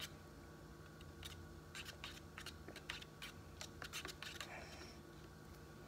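Faint, irregular clicks and light scrapes of a wooden stir stick against the inside of a paper cup as cocoa powder is stirred into water, over a steady low hum.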